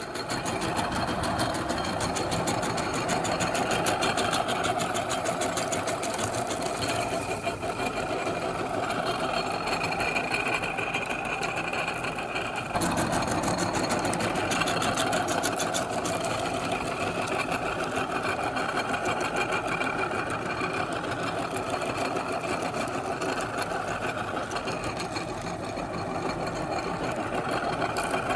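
Electric meat grinder running steadily with a fast, even mechanical rattle, with a brief dip and a change in tone about 13 seconds in.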